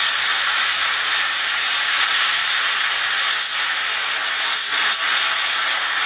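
Steam wand of an Atomic stovetop espresso machine hissing steadily into a jug of milk as it froths it, with a few brief louder spurts.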